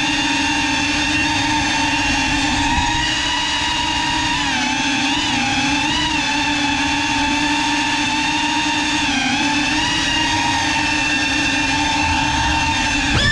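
Small FPV drone's brushless motors and propellers whining steadily in flight. The pitch dips and rises briefly a few times as the throttle changes.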